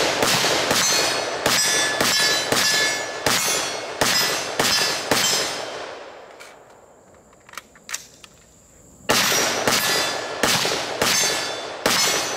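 AR-15 carbine fired in a rapid semi-automatic string, about two to three shots a second, with hits ringing on steel targets. The firing stops for about three seconds in the middle, where only a few faint clicks are heard, then resumes at the same pace.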